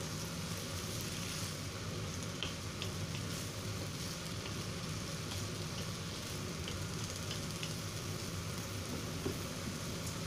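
Stir-fry sizzling in a nonstick wok as chives, dried tofu and pork are tossed with a wooden spatula, with small scrapes and taps of the spatula against the pan. A steady low hum runs underneath.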